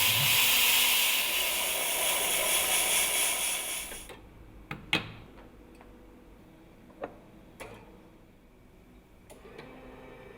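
Schaerer coffee machine venting a loud hiss of steam that cuts off about four seconds in. A few sharp mechanical clicks and knocks from the machine follow.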